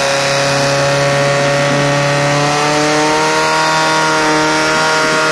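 Portable fire pump engine running flat out as it drives water through the attack hoses, its pitch climbing about halfway through and then holding steady.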